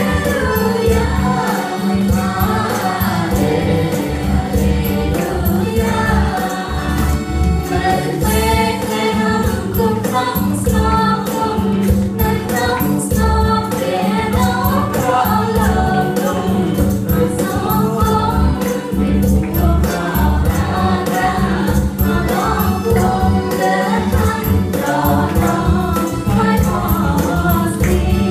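A Khmer Christian worship song sung by a leader on a microphone with voices joining him, over instrumental accompaniment with a steady beat and a strong bass.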